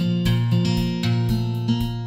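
Background music: guitar strumming chords in a steady rhythm.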